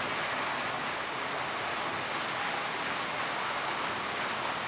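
Steady rain falling, an even, unbroken wash of drops.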